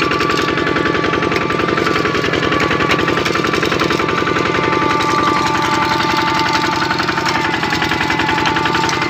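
Kubota RT-series single-cylinder diesel of a two-wheel walking tractor running under way: a fast, even, steady chugging knock, with a steady high whine alongside.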